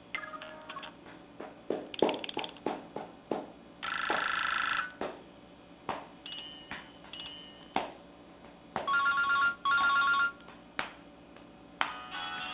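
A Nokia E5 ringtone played through a Nokia 130 phone's speaker: a string of short clicks and tones, a held tone about four seconds in, and two short ringing bursts about nine and ten seconds in.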